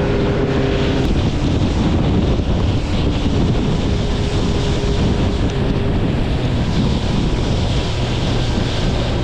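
Boat under way: a steady, loud rush of engine, water along the hull, and wind noise on the microphone.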